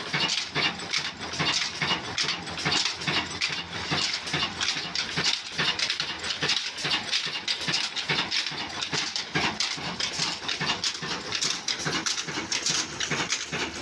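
Old Ruston diesel engine running steadily, driving flat belts and spoked pulleys to a hopper-fed mill: a fast, even beat of knocks that keeps on without a break.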